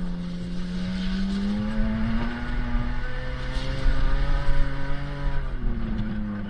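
Four-wheel-drive truck engine heard from inside the cab while driving on a gravel track. The engine note climbs over a couple of seconds, holds steady, then drops about five and a half seconds in, over a low rumble.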